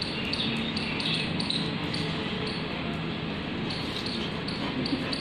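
Water spraying from a garden hose onto a lawn, a steady hiss.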